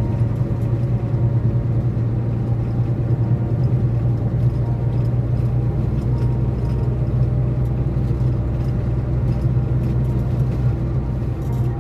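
Car driving at a steady speed, heard from inside the cabin: engine and tyre noise making a steady low hum.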